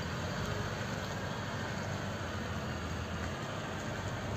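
Mercedes-Benz Sprinter's OM642 3.0 V6 turbodiesel running steadily at low speed as the van drives slowly off, over a steady haze of background noise.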